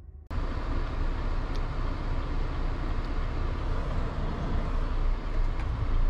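Truck cab interior on the move: steady engine and road noise, cutting in abruptly just after the start.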